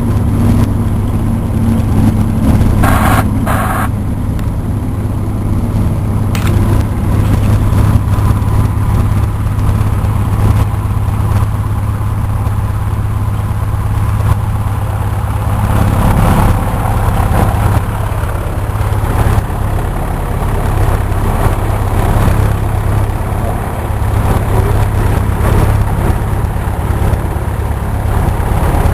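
Cessna 172's piston engine and propeller running steadily at low power, with a short higher-pitched sound about three seconds in and a little more noise from about halfway through.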